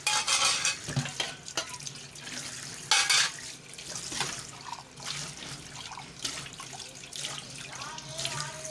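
Tap water running into a stainless steel sink as dishes are washed, splashing over a pot and mugs. It surges louder just after the start and again about three seconds in, with light knocks of crockery and utensils against the sink.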